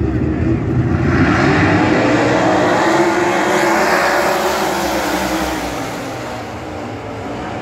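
A pack of World of Outlaws winged sprint cars, 410 cubic-inch V8s, racing past together at full throttle at the start of a heat race. The engines swell loud about a second in and ease off as the field moves away, with several engine pitches rising and falling together.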